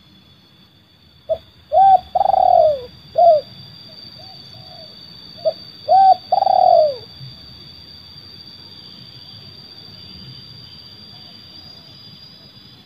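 Spotted dove (terkukur) cooing in the song pattern known as seladang gantung: two phrases about four seconds apart, each a few short coos around one longer, falling coo.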